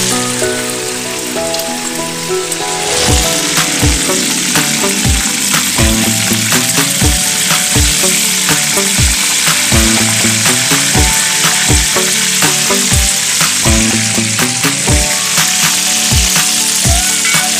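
Food frying in hot oil in a pan, a steady sizzle, mixed with background music whose steady beat comes in about three seconds in.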